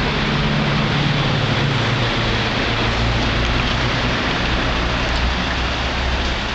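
Steady, loud hiss of outdoor street ambience with a low rumble underneath.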